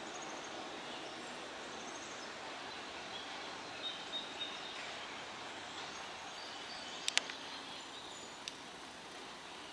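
Outdoor ambience: a steady background hiss with scattered short bird chirps, and a couple of sharp clicks about seven seconds in.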